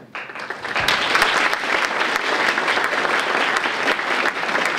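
An audience applauding, building within the first second and then holding steady.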